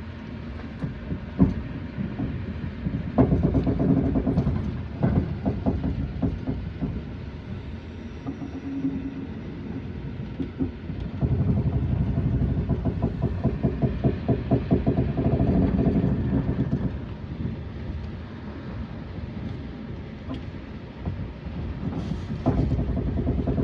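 Train wheels clattering over rail joints, heard from aboard a moving train, in runs of rapid, even knocks with the loudest stretch past the middle.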